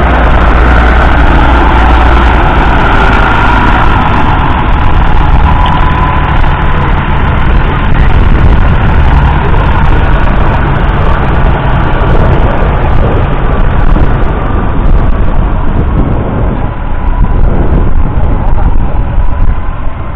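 1997 Massey Ferguson 6170's 6.0-litre six-cylinder diesel engine running loudly as the tractor drives past close by, a steady low rumble.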